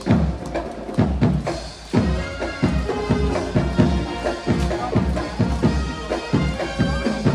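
Traditional temple-procession music: a drum beating steadily, joined about two seconds in by a shrill reed wind melody playing held notes.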